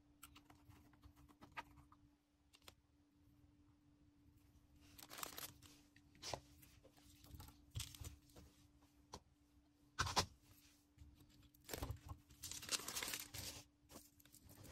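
Hands handling order packaging: bursts of crinkling and tearing with scattered clicks and knocks. The sharpest knock comes about ten seconds in, and a longer stretch of crinkling follows a couple of seconds later, over a faint steady hum.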